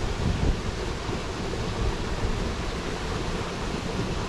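Steady rushing noise of flowing river water, with wind buffeting the microphone in low rumbling gusts, strongest near the start.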